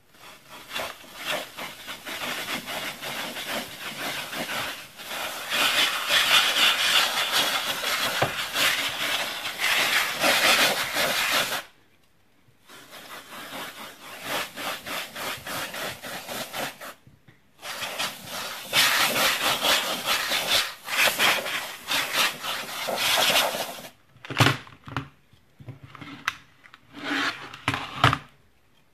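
Can of compressed air hissing through its straw into a keyboard in long blasts, three long ones a few seconds each with short breaks between, then a few shorter blasts and a couple of knocks near the end.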